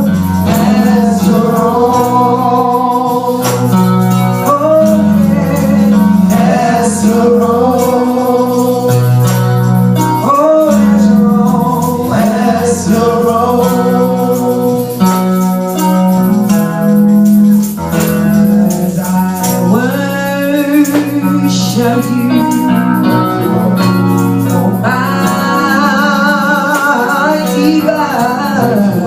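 Gospel-style worship song: male and female voices singing with vibrato over sustained organ-like chords and a steady bass.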